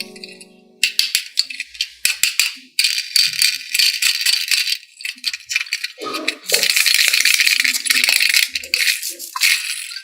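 Rattling: many small hard clicks shaken fast, in several bursts, the longest lasting about three seconds near the end.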